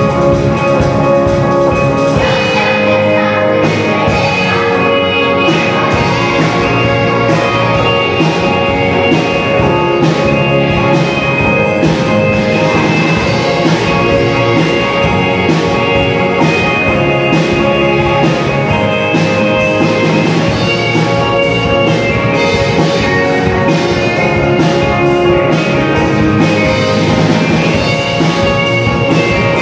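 Upbeat instrumental background music with a steady drum beat; the beat comes in about two seconds in.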